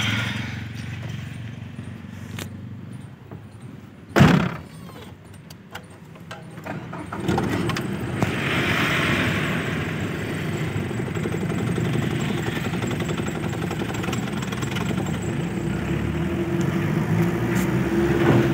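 Diesel engine of a Tata Super Ace mini truck running, heard from inside the cab, getting louder about seven seconds in as the truck pulls away and then running steadily under way. A single loud, short thud sounds about four seconds in.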